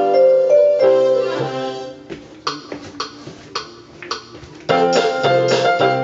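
Casio LK-175 electronic keyboard playing a melody over held chords. About two seconds in the sound drops to a quieter run of short, sharp hits about twice a second, then loud full chords come back in near the end.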